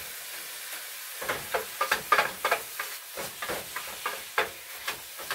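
Ground beef sizzling in a Salad Master stainless steel skillet while a plastic meat chopper scrapes and jabs through it, breaking the meat into small crumbles. The sizzle runs alone for about a second, then quick irregular scraping strokes come several times a second over it.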